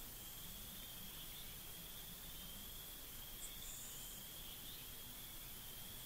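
A faint, steady high-pitched trill, with a short, higher chirp about three and a half seconds in.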